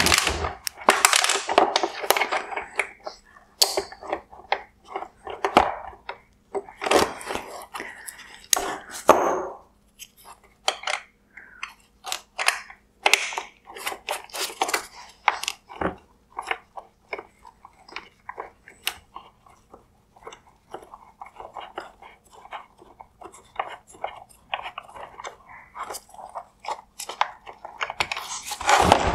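Small 1/4-inch ratchet with a T20 Torx socket clicking in runs as a screw is loosened, along with clicks and rattles of hard plastic headlight-housing parts being handled.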